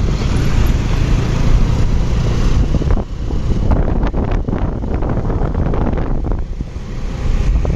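Loud wind rumble on the microphone, likely while travelling, heaviest in the low end, with a few sharp knocks about three to four and a half seconds in.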